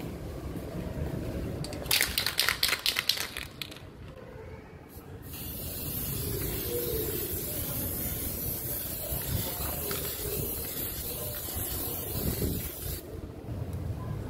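Aerosol can of chrome spray paint rattled in quick strokes for about a second and a half, then a long steady spray hiss of about eight seconds that cuts off near the end.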